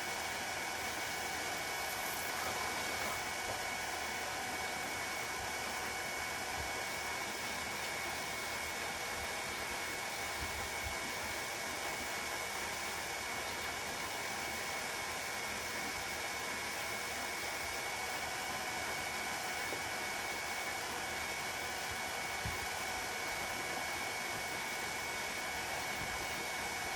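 Steady hiss of water running from a garden hose into a pan, with a thin steady high tone over it.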